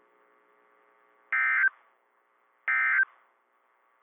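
NOAA Weather Radio SAME end-of-message data bursts: two short, shrill warbling digital tone bursts about a second and a half apart, with a third beginning right at the end. They mark the close of the severe thunderstorm warning broadcast.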